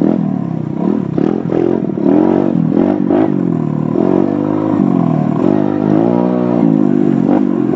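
Dirt bike engine revving up and dropping back over and over as it is ridden along a rough trail, with knocks and rattles from the bumps.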